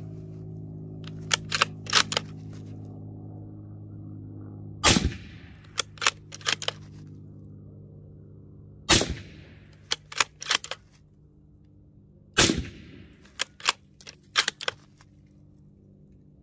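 Christensen Arms Ridgeline Scout bolt-action rifle fired three times, a few seconds apart, each shot a sharp report with a ringing tail. Between shots come quick clusters of metallic clicks as the bolt is worked to chamber the next round.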